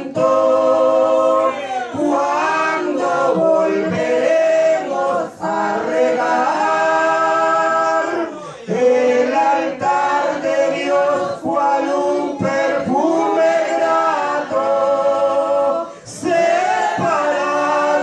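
A man and a woman singing a Spanish-language hymn together into microphones, in long held notes with short breaks for breath.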